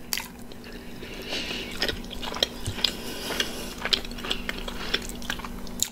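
Chewing a bite of pepperoni pizza with a cauliflower-and-mozzarella crust, with many small mouth clicks and smacks throughout.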